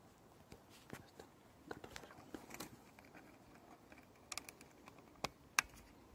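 Scattered plastic clicks and knocks from a trail camera being handled: buttons pressed, then its case shut and set against a tree trunk. A few sharp clicks in the second half are the loudest.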